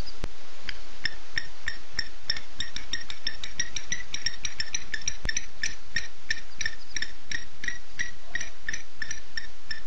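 An animal calling at night: a long series of short, evenly spaced pitched notes, about three or four a second, over a steady hiss. A sharp click comes just after the start and another about five seconds in.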